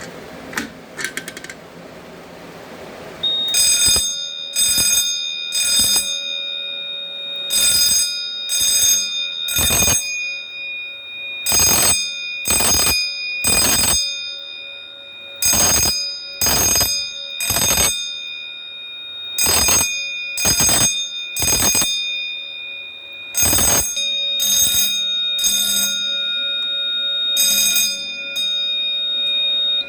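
A few sharp clicks as an EST (Edwards) fire alarm pull station is pulled, then a Wheelock 6-inch fire alarm bell ringing in code 3: groups of three rings about a second apart, repeating every four seconds, over a steady high-pitched tone. The bell stops after a lone ring near the end.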